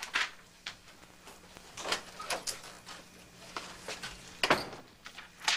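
Sounds of a person moving about and walking: scattered knocks, scuffs and footsteps, the loudest a brief rustling thud near the end.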